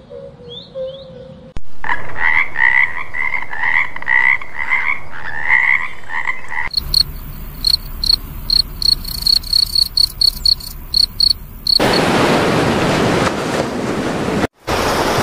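Frogs calling in a chorus of rapid, repeated croaks, then a field cricket chirping in a high, even pulsing trill from about seven seconds in, then ocean waves washing from about twelve seconds in.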